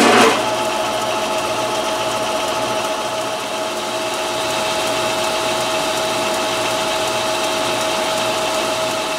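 Metal lathe starting up right at the start, then running steadily with a steady whine while its cutting tool takes a facing cut across an aluminum pulley held in a four-jaw chuck.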